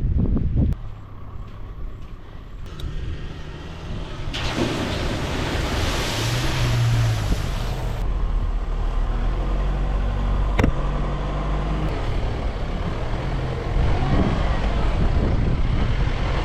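4WD vehicle's engine running steadily as it drives along a sandy dune track, with a few seconds of hissing noise about four seconds in and a sharp knock about ten seconds in. Wind on the microphone stops abruptly under a second in.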